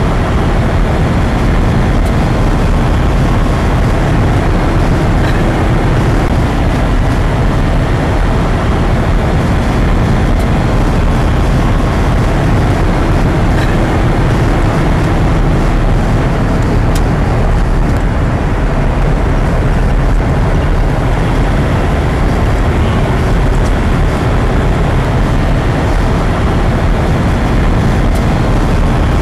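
Steady road noise heard from inside a moving vehicle's cabin: a continuous low rumble of engine and tyres on the road with wind noise, loud and unchanging.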